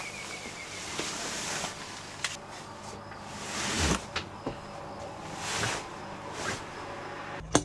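Fabric rustling in several swells as a comforter is spread and smoothed over a mattress, with a few light knocks in between.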